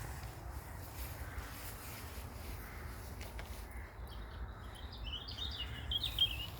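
A small bird's high, quick chirping twitter from about four seconds in, loudest just before the end, over a steady low rumble.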